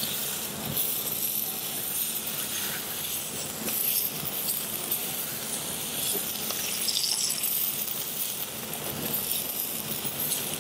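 Roe deer loin sizzling on a very hot steel plancha as it is quickly seared for browning, with a few light clinks of metal tongs turning it.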